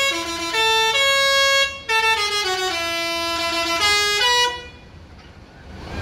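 Basuri telolet horn on an intercity bus, a musical air horn with several trumpets, playing a loud tune of held notes one after another as it is warmed up. The middle of the tune steps downward, and the horn cuts off about four and a half seconds in.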